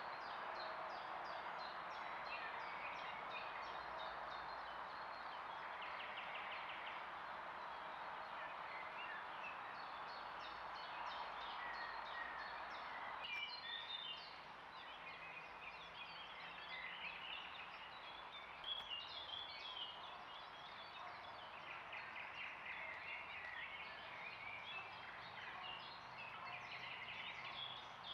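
Several songbirds singing at once in spring woodland, a steady chorus of short chirps, warbles and trills, over a constant hiss. The hiss drops a little about halfway through, and there is one brief click later on.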